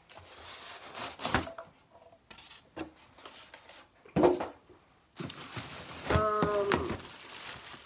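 Packaging being handled: knocks and scrapes of a cardboard box and its white insert board, with a sharp knock about four seconds in, the loudest. Then a clear plastic bag wrapped around the foot spa rustles as it is grabbed, with a short wordless voice sound over it near the end.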